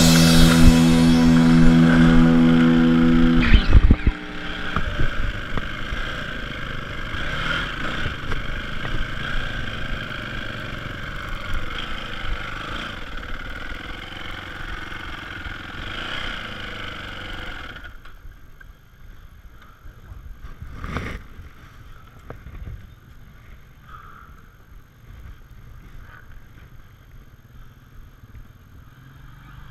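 Rock music for the first few seconds, then a Yamaha dirt bike's engine running as it rides. A little past the middle it drops much quieter to a low idle, with a single knock a few seconds later.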